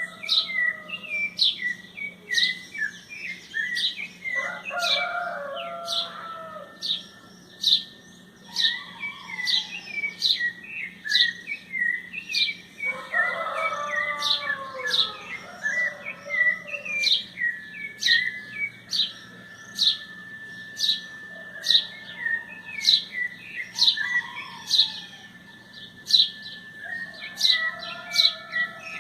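Dawn chorus of birds, with one bird giving sharp, high chirps about once a second throughout. A rooster crows twice, about five seconds in and again around the middle.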